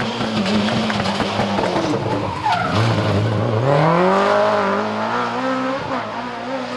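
BMW M3 E30 rally car's four-cylinder engine, its note held, then dropping sharply about two and a half seconds in as the car slows for a corner, then rising steadily as it accelerates hard away.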